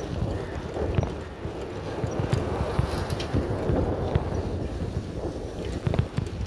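Wind buffeting the microphone of a camera carried on a moving bicycle, a low rumble, with irregular clicks and rattles from the ride over the road.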